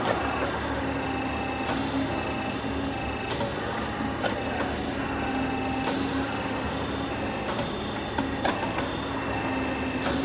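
Downspout elbow machine running: a steady machine hum with tones that come and go, broken by short bursts of hiss every couple of seconds.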